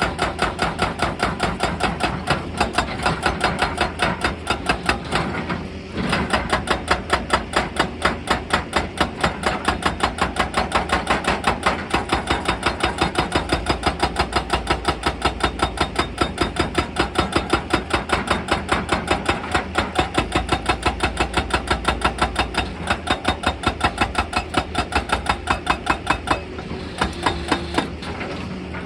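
Excavator-mounted hydraulic breaker hammering rock in a rapid, even rhythm of blows, with a brief pause about six seconds in. Near the end the hammering stops, leaving the excavator's engine running.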